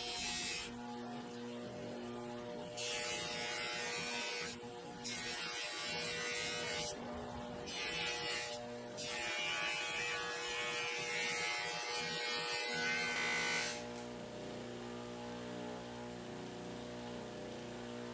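Bench buffer motor running with a steady hum while its spinning cloth buffing wheel is charged with a bar of polishing compound and then pressed against a small metal toy part. Each contact adds a loud hissing rush, in several stretches over the first fourteen seconds, after which only the motor hum is left.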